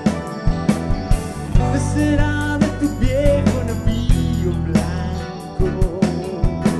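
Live rock band playing: drum kit with regular hits, bass, keyboard and electric guitar.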